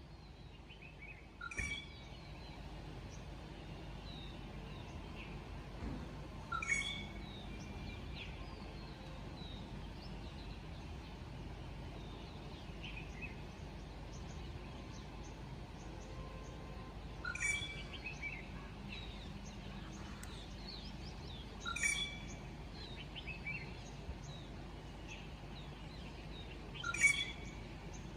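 Wild birds calling and chirping: one loud, sharp call comes five times at uneven gaps of several seconds, over many softer chirps and a steady low background rumble.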